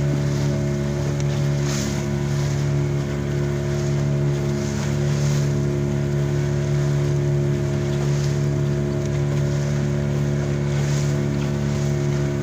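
Small fishing boat's engine running steadily under way, a constant drone that holds one pitch, over the wash and splash of water along the hull.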